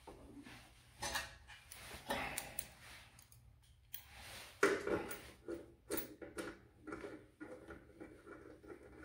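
Hand tools and metal parts being handled at a band saw's lower wheel, with an Allen wrench going into the wheel hub near the end: scattered clinks, knocks and rustling, the loudest knock about halfway through.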